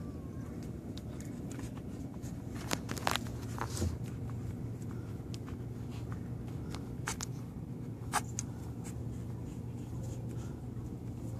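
Newborn pit bull puppies nursing and squirming against their mother: soft rustling and scattered small clicks over a steady low hum, with a short cluster of clicks about three seconds in and another couple about eight seconds in.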